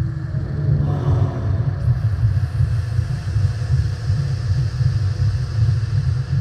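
A deep, steady low rumble from a designed soundscape. A brief faint pitched tone sounds about a second in, and a thin hiss comes in near two seconds.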